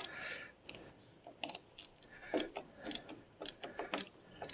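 Ratcheting hand driver clicking in short runs as screws are turned out counter-clockwise by hand, with light scraping of the bit in the screw heads.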